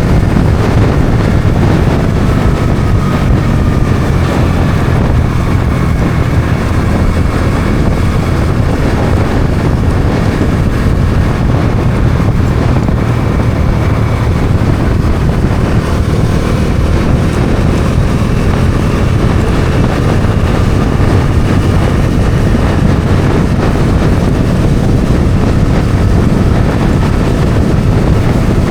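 Bajaj Dominar 400's single-cylinder engine running steadily at cruising speed, mixed with wind noise on the microphone.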